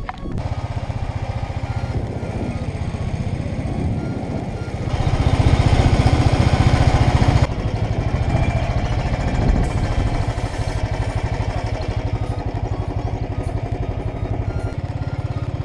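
Motorcycle engine running steadily while riding, with a louder, hissier stretch of about two and a half seconds near the middle that cuts off abruptly.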